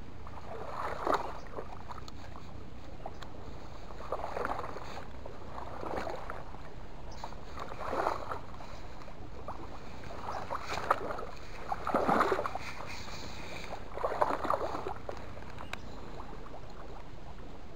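Short water splashes and sloshes, about seven of them spaced every second or two, over a faint steady hiss.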